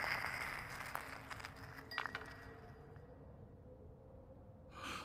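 Faint glassy clinks and tinkling fading away in the trail of a shattering crash, with a few sharp clinks in the first two seconds. A brief soft whoosh comes near the end.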